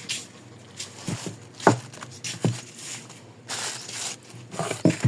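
Hand tools knocking and clinking on metal while a car's shock absorber is being unbolted, with short scraping or ratcheting bursts in between. The loudest knock comes a little under two seconds in.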